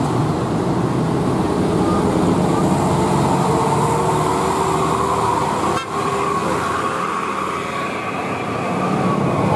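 Road traffic: steady vehicle noise with faint, long horn tones, and a brief drop in level about six seconds in.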